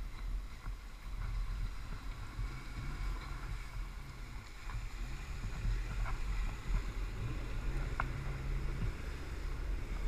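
A small 4x4's engine running as it drives through a shallow rocky stream and passes close by, with water sloshing around its wheels. The sound grows somewhat louder about halfway through as it comes alongside.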